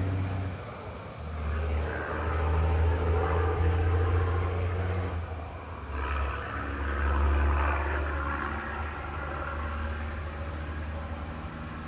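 Road traffic: a low engine hum with two swells of tyre noise. The first builds about two seconds in, the second about six seconds in, and each fades away like a passing car.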